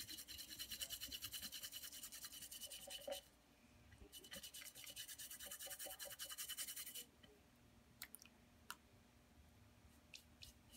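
Flat paintbrush scrubbing quickly back and forth over bisqued pottery, working glaze down into a lace-doily imprint: two bouts of fast scratchy strokes, each about three seconds long. A few light clicks follow near the end.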